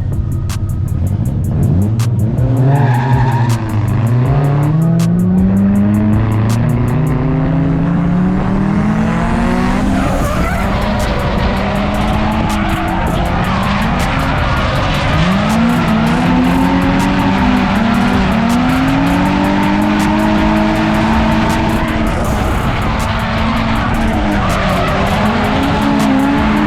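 Drift car engines revving up and falling back again and again during a tandem drift run, with tires squealing and skidding.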